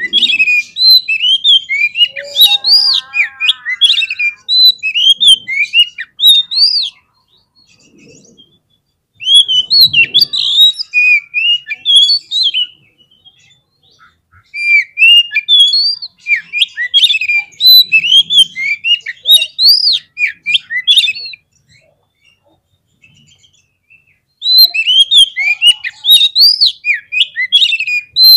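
Oriental magpie-robin (kacer) singing a fast, varied stream of loud whistled and chirping notes. The song comes in four bursts with short pauses between them. It is an excited, aggressive 'fighter' song of the kind played to provoke other magpie-robins.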